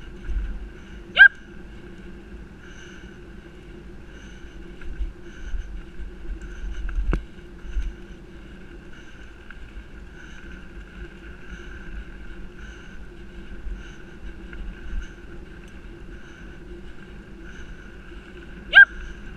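Wind buffeting the microphone and the bike's tyres rolling along a gravel-and-asphalt forest path in a steady rumble, with a steady hum under it. Short high-pitched chirps come about a second in and twice near the end, with a single sharp click about seven seconds in.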